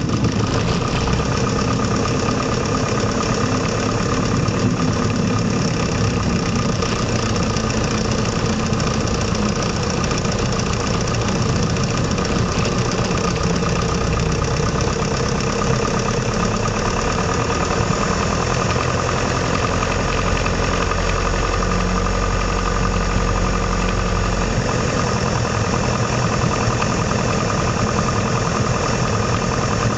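Piper Cherokee's single piston engine and propeller droning steadily, heard from inside the cockpit during a night approach to land. A deeper low hum comes in for a few seconds about two-thirds of the way through.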